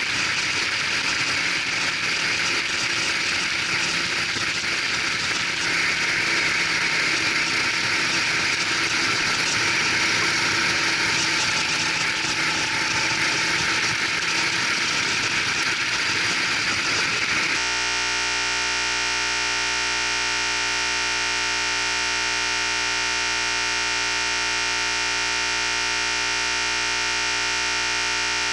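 Go-kart engine running on track, a rough, noisy drone. About 17 seconds in it cuts abruptly to a steady, unchanging electronic buzz made of many fixed tones, a glitch where the recording breaks.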